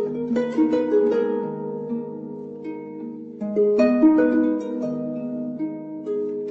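Background music of plucked, harp-like notes over held tones, with a cluster of plucks about halfway through.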